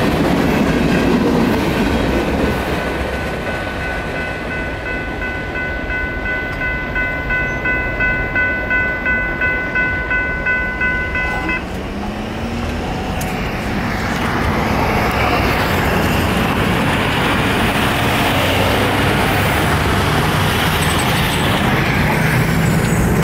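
Freight cars rolling through a grade crossing with wheel clatter, while the crossing's General Signals Type 3 electronic bell rings steadily. About halfway through, the bell stops suddenly as the gates rise, leaving a steady noise of passing road traffic.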